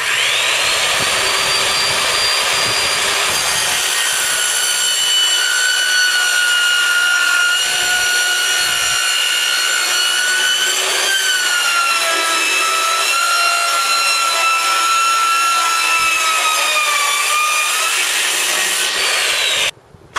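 Skil circular saw cutting through an aluminum sheet with a loud, high whine. The whine spins up at the start, drops in pitch about halfway through and again near the end, and cuts off suddenly just before the end.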